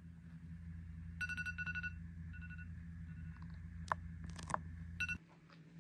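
iPad alarm ringing in clusters of short, quick beeps on one pitch over a steady low hum, with a few sharp clicks around four seconds in. Everything cuts off suddenly near the end.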